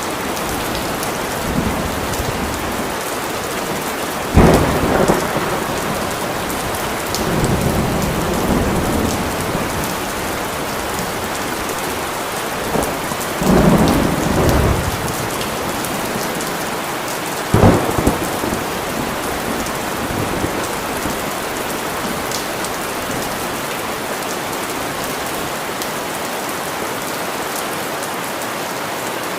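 Steady heavy rain falling, with thunder: a sharp clap about four seconds in and another near eighteen seconds, and rumbling rolls around eight and fourteen seconds.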